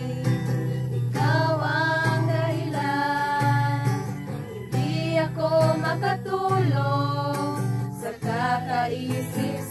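Several female voices singing a song together, accompanied by an acoustic guitar.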